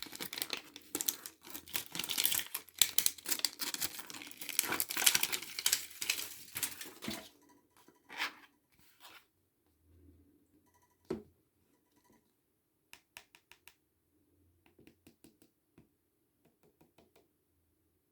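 Packaging being torn open and crinkled for about seven seconds, then scattered light clicks and taps as the package is handled.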